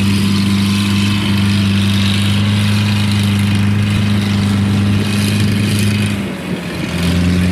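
A farm machine's engine runs at a steady speed with an even, unchanging hum. About six seconds in it drops away briefly, then picks up again.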